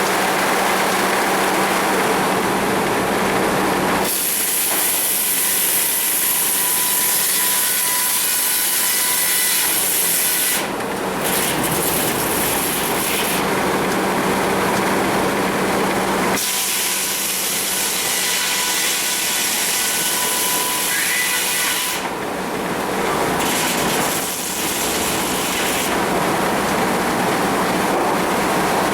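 Sawmill running loud and steady while a saw cuts through a cedar log. The sound changes character every few seconds as cuts start and finish, with a steady hum that comes and goes.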